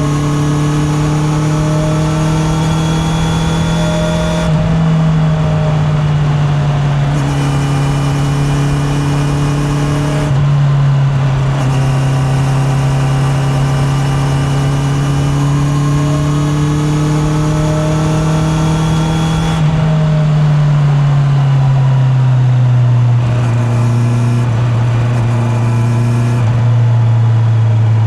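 Honda CB650R inline-four motorcycle engine running under way at moderate revs. The revs climb slowly twice, then drop about 20 seconds in as the throttle is rolled off, and settle at a lower steady pitch.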